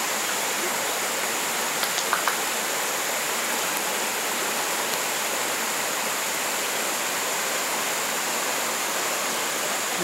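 Steady rush of a rocky stream and waterfall, the water flowing and splashing over stones, with a couple of faint clicks about two seconds in.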